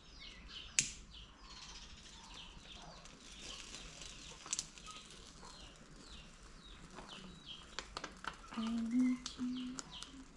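Small birds chirping over and over in quick falling notes, with a few sharp clicks and knocks. Near the end, a short run of low, pitched calls.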